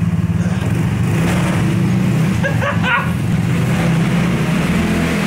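Two small go-kart engines running together with a steady low drone as the double-engine kart backs up in reverse. A short high chirp comes about halfway through.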